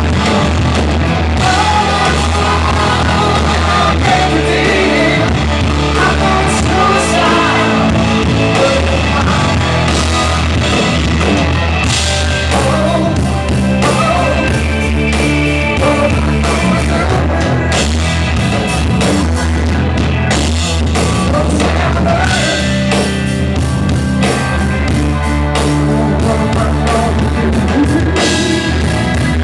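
Live rock band playing loudly: drums, bass, electric guitar and a male lead vocal singing.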